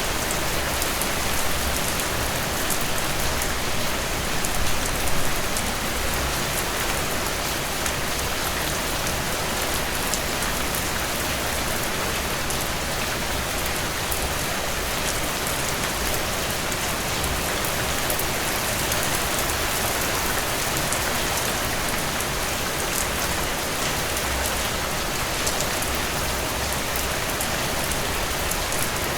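Steady heavy rain falling, a dense even hiss of drops striking surfaces, with no thunder.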